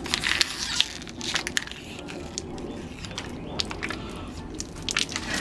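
Thin plastic water bottle crackling and crinkling in irregular snaps as it is squeezed and crushed while the water is drunk from it.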